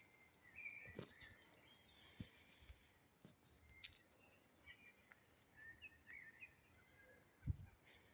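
Faint birdsong: scattered short chirps and warbling phrases, with a few soft clicks and a low thump near the end.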